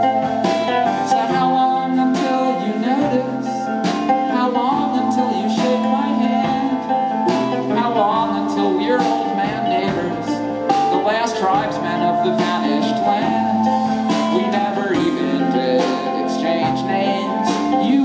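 Live band playing an instrumental break: strummed guitar, bass guitar and drum kit, with a melodic line moving over the chords.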